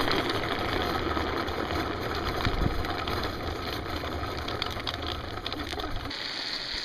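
Steady rumble of trike wheels rolling over coarse asphalt, with scattered small clicks, cutting off abruptly about six seconds in.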